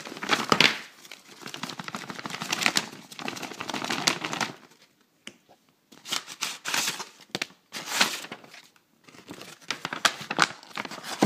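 Packaging crinkling and rustling as a cut-open mail package is tipped out and its contents handled, in three spells with short pauses between.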